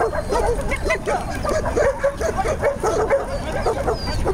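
Many dogs barking and yelping at once: a dense, overlapping chorus of short barks with no let-up.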